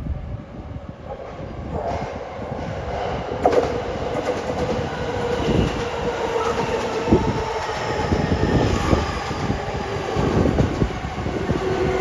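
Keihin-Tohoku Line electric commuter train running past, growing louder, its wheels knocking over the rail joints. A steady high squeal comes in about three and a half seconds in.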